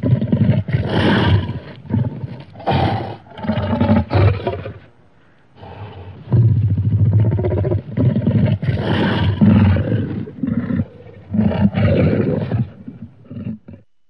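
Custom-made Indominus rex creature roars: two long bouts of deep, growling roaring, each broken into several pulses, with a short pause about five seconds in.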